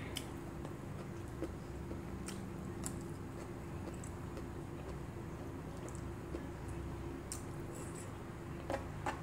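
Soft chewing and small wet mouth and finger sounds of a person eating rice and fish by hand, with scattered light clicks and a few louder ones near the end. A steady low hum runs underneath.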